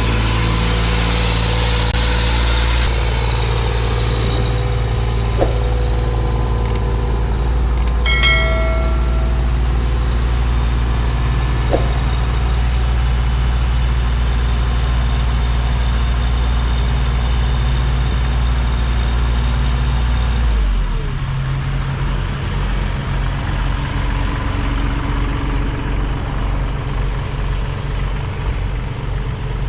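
A vehicle engine running with a steady low drone. The drone changes about two-thirds of the way through, and a brief set of high tones sounds about eight seconds in.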